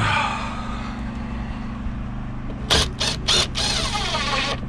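An engine running steadily with an even low hum. About three seconds in come a few short, sharp noisy bursts, then a brief hiss.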